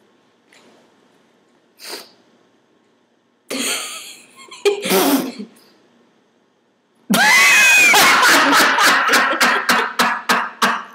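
A man and a woman laughing: a short breathy burst of laughter about three and a half seconds in, then a brief voiced laugh, then from about seven seconds loud, shrieking laughter in rapid pulses, about three or four a second.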